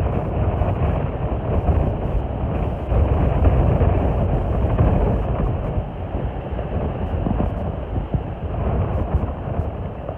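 Wind rumbling on the microphone over sea waves washing in, the loudness swelling and easing every few seconds.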